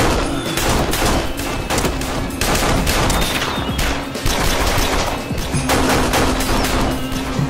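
Rapid handgun gunfire in a shootout, many shots in quick succession, over background music.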